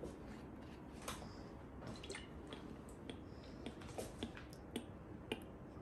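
Faint scattered clicks and light trickling as the cap is twisted off a glass bottle of olive oil and the oil is poured into a bowl.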